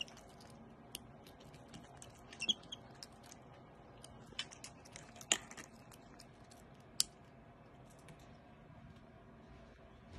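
A capuchin monkey chewing raw vegetables: small, irregular crunching clicks, with a few sharper clicks standing out, the loudest about five seconds in.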